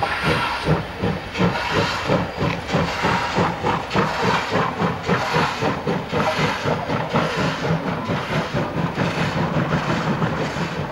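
German express steam locomotive under way, its exhaust chuffing in a quick, even beat of about four a second, with hissing steam; the beat eases near the end.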